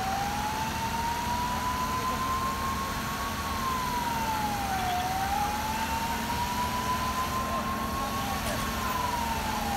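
Fire engine siren wailing slowly. A single tone climbs over about three seconds and drops back more quickly, twice, over a steady low rumble.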